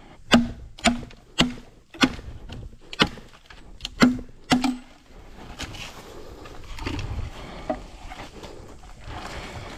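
Blade chopping into wood: seven sharp strikes, each with a brief hollow ring, over the first five seconds. Then softer rustling and handling with a couple of light knocks.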